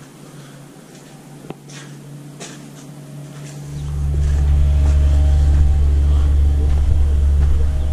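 Wind buffeting the microphone outdoors, a loud low rumble that sets in about four seconds in. Before it, a faint steady hum and a single click.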